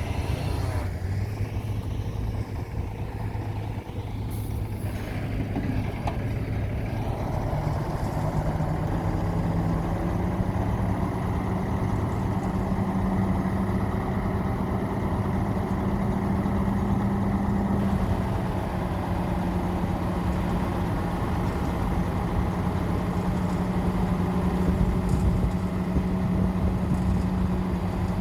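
Heavy 12-wheel dump truck's diesel engine running steadily. Its revs climb about eight seconds in and then hold at a higher pitch.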